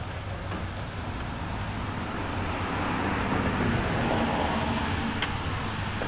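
A passing car, its noise swelling and then fading about midway, over a steady low traffic rumble. One sharp click about five seconds in.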